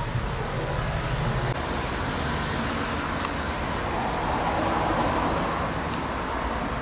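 Steady road traffic noise, with a passing vehicle swelling and then fading about four to five seconds in.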